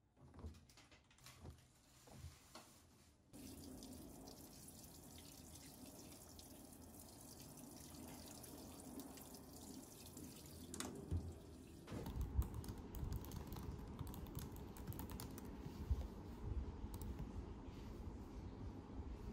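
Water running into the drum of a top-loading washing machine as it fills, then, partway through, fingers typing on a laptop keyboard.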